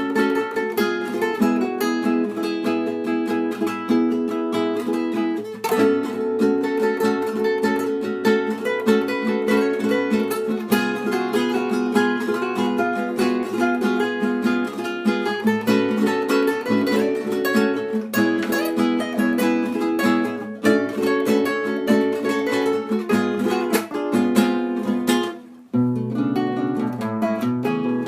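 Instrumental music on strummed and plucked string instruments, with quick runs of notes. There is a brief break about 25 seconds in, after which lower strumming carries on.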